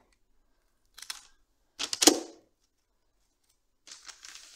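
Scissors cutting through a bunch of flower stems: a light snip about a second in, then a louder, heavier cut about two seconds in. Near the end comes a soft rustling.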